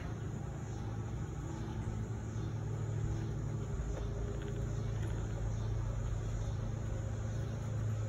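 A steady low mechanical hum with a rumble beneath it, growing a little stronger about three seconds in.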